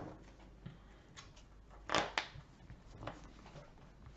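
Trading cards being handled on a table: a few soft taps and slides, with one louder scrape about two seconds in.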